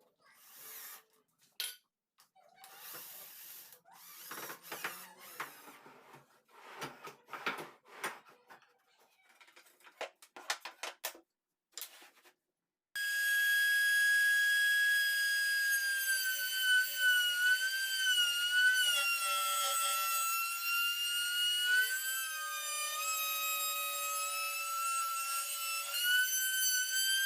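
Clicks and rubbing of wood and tool handling, then about halfway through a table saw's motor and blade start up with a loud, high whine. The pitch sags and wavers as the blade is loaded by cutting, then climbs back near the end.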